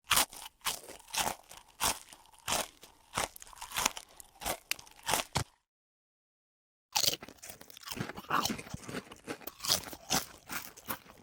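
Crunchy eating sounds: rapid crisp bites and chewing crunches, in two runs broken by a second and a half of dead silence about five and a half seconds in.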